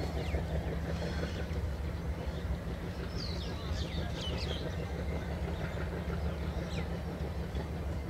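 Low, steady rumble of a passenger express train running past behind trees. Birds chirp briefly a few times in the middle and near the end.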